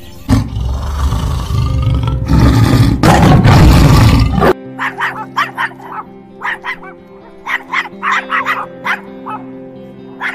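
A tiger's deep, rough roar in two long swells, which cuts off abruptly after about four and a half seconds. Then a dog barks in a run of short, quick barks over background music.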